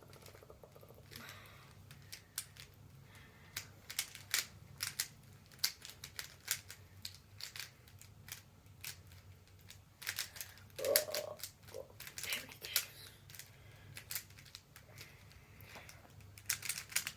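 Plastic clicking and clacking of a mirror cube being turned by hand while it is solved: quick irregular clicks, some in short runs, with pauses between them.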